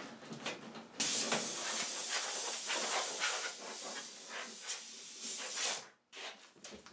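Compressed-air blow gun on a shop air hose blowing dust off a push mower: a loud hiss that starts suddenly about a second in and cuts off near the end, after a few light knocks.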